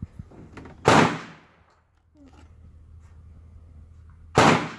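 Two gunshots about three and a half seconds apart, each a sharp crack with a short echoing tail. Faint handling clicks between them.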